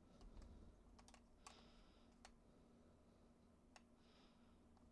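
Near silence with a few faint, sharp clicks and soft scratches, from a marker being drawn across homemade slime.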